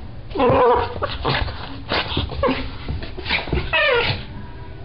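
Small dog giving a string of short whines and yips, about six calls, the last one longer and falling in pitch.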